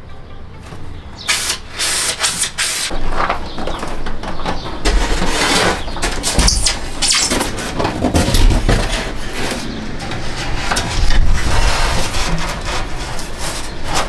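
A foam insulation board being handled: irregular scraping and rustling as it is carried and slid across a ribbed metal van floor, starting about a second in.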